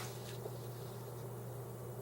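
Steady low electrical hum of the room, with a short click right at the start and a fainter one about half a second in.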